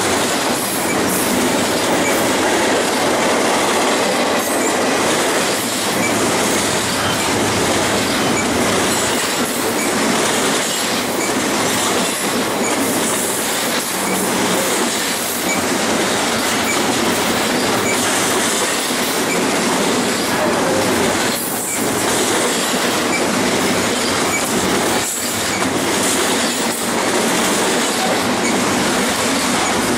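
Double-stack intermodal container train, its loaded well cars rolling past close by: a loud, steady noise of steel wheels on rail.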